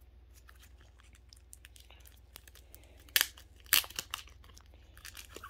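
Paper or plastic mail packaging being torn open and crinkled by hand. A run of small rustles, with two louder tears about three and four seconds in and more rustling near the end.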